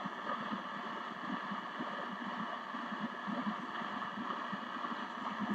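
Steady static hiss from an RCA M-45 vacuum-tube radio's speaker on its shortwave band, with faint crackles, while the set is tuned around 9.5 for a test signal that has not yet come in.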